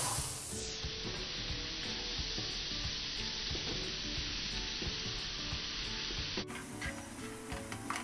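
Ker sangri frying in oil in a nonstick pan, sizzling softly while a plastic slotted spatula stirs and scrapes through it with small clicks.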